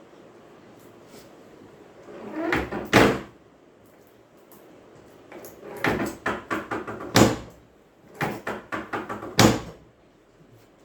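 Joints popping during chiropractic spinal adjustments: three quick runs of cracks, each ending in one loud crack, about two seconds in, around six to seven seconds, and near the end.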